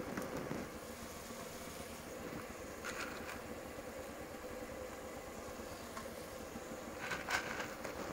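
A steady mechanical hum with a faint steady tone, and brief faint clatters about three and seven seconds in.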